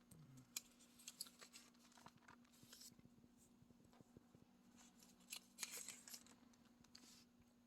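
Near silence: room tone with a few faint, brief rustles and clicks, the clearest cluster a little past the middle.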